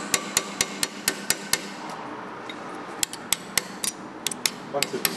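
Quick, light hammer taps on a small steel chisel, metal on metal, about four a second, stopping for about a second and a half midway and then starting again. The chisel is cutting a thin, corroded tin sleeve off a Rolls-Royce Corniche water pump shaft.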